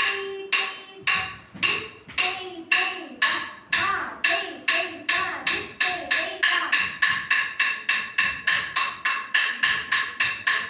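A steady beat struck to keep time for dancers' steps: sharp ringing strikes, about two a second at first, speeding to about three a second past the middle, with a voice chanting along underneath.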